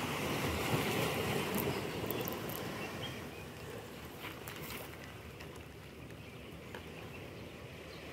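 Steady rushing outdoor noise, louder for the first couple of seconds and then easing off, with a few faint clicks.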